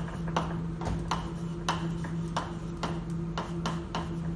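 Chalk writing on a blackboard: a run of sharp taps and short scrapes, about three a second, as letters are struck onto the board. A steady low hum runs underneath.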